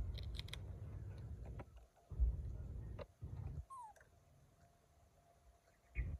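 Wind rumbling on the microphone in gusts, with a few light clicks just after the start and one short, high squeak falling in pitch about four seconds in.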